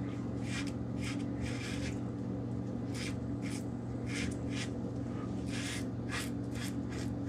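Rockwell 6S double-edge safety razor with a Gillette Permasharp blade scraping through lathered stubble in short strokes, about two a second, over a steady low hum.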